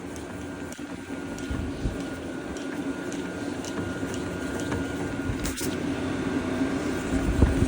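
Transfer pump on a diesel fuel caddy running steadily, set in reverse to suck old fuel out of a diesel heater's tank.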